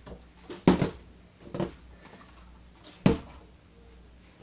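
Partly filled plastic water bottle knocking onto an upturned plastic bucket three times, the first knock the loudest.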